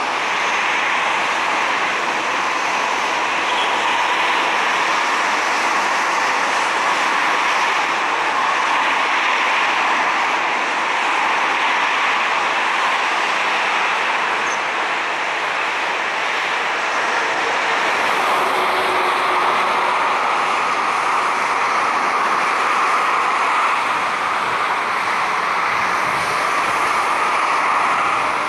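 Jet engines of a Boeing 737 moving along the runway at power, a steady loud noise with no break, changing slightly in tone about two-thirds of the way through.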